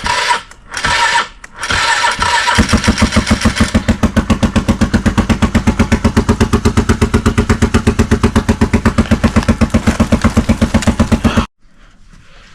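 Quad (ATV) engine running just after a cold start on choke. It is uneven and broken for the first couple of seconds, then settles into a steady, rapid idle pulse, and cuts off abruptly near the end.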